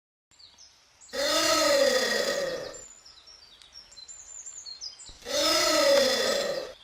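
Giant anteater calling twice: two harsh, drawn-out calls of about a second and a half each, their pitch rising and then falling, the second starting about two and a half seconds after the first ends. Small birds chirp faintly before and between the calls.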